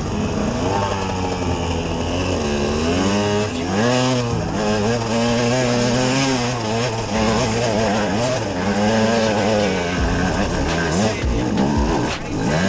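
Enduro motorcycle engine revving hard under load on a steep rocky climb, its pitch rising, falling and wavering constantly with the throttle.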